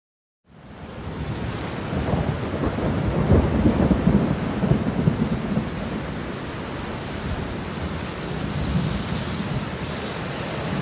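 Steady rain with a long rumble of thunder that swells and peaks a few seconds in. The sound fades in from a brief silence at the start.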